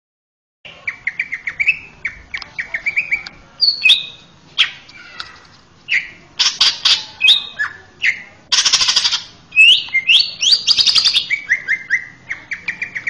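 Male cucak ijo (green leafbird) singing a fast, varied song, starting about a second in: quick runs of chirps, rising whistles and a harsh buzzy rattle near the middle.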